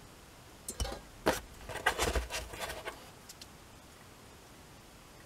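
Light clicks and knocks from handling small iron-cored radio chokes and a steel choke clamp frame, a handful of them between about one and three seconds in.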